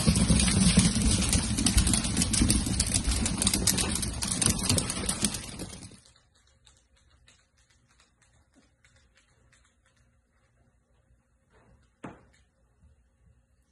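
Miniature dachshund puppies running on a tile floor, many claws clicking rapidly over a loud rushing noise. It cuts off suddenly about six seconds in, leaving near silence with faint ticks and one short knock near the end.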